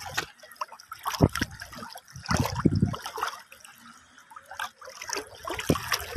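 Seawater sloshing and splashing close to the microphone in small, irregular splashes and trickles, with a louder spell of splashing a little over two seconds in.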